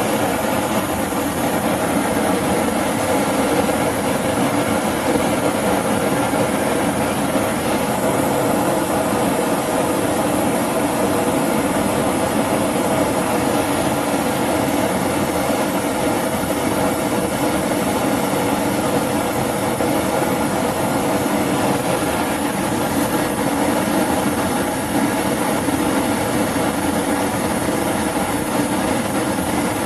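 High-temperature LPG/propane torch burning steadily with a constant rushing noise, heating a joint for silver soldering.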